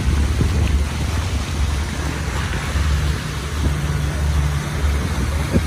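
Small motorboat under way: its engine gives a steady low drone, under a continuous rushing hiss of water and wind.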